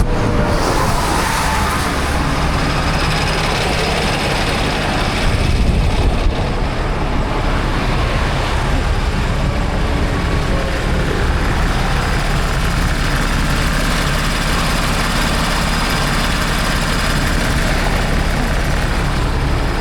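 A truck engine running steadily, a constant low hum under a broad hiss, slightly louder for a moment about five seconds in.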